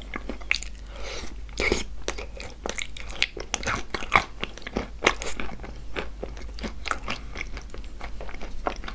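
Close-up crunching and chewing of wet chalk coated in clay paste: a dense, irregular run of crisp crunches as the chalk is bitten and ground between the teeth.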